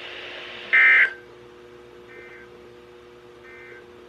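NOAA Weather Radio EAS end-of-message data bursts: three short warbling digital tone bursts about a second apart, the first loud and the next two fainter. They signal the end of the alert message. A faint steady hum runs underneath.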